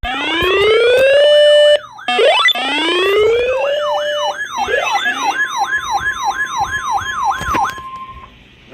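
Electronic siren: two long rising wails, then a fast yelp warbling about four times a second, settling on a steady note that cuts off near the end.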